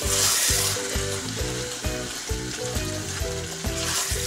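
Chicken jalfrezi simmering and sizzling in a nonstick wok as it is stirred with a wooden spoon, the hiss loudest at the start and again near the end. Background music with a steady beat plays under it.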